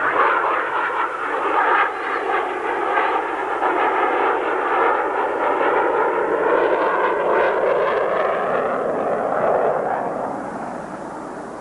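Jet noise from the Grumman X-29's single General Electric F404 turbofan as the aircraft passes close and climbs away, its tone sweeping as it goes. The sound fades near the end.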